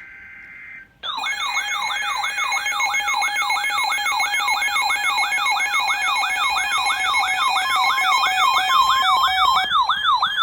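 Emergency Alert System attention signal relayed over a broadcast, starting about a second in. It is a shrill warbling alert tone that sweeps down and up about three times a second over steady underlying tones, and it marks the start of a new severe thunderstorm warning.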